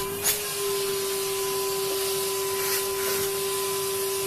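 Vacuum cleaner running steadily: a constant motor whine over an airy hiss, with a brief knock just after the start.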